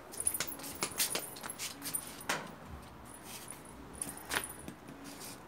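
Small plastic ball tapping and rolling on a hard stone floor as a kitten bats it about: a scatter of light, irregular clicks and taps, with a few sharper knocks about a second, two seconds and four seconds in.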